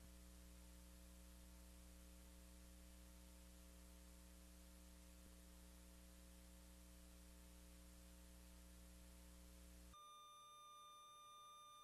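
Near silence: a faint steady hum with hiss, changing about ten seconds in to a faint steady high tone.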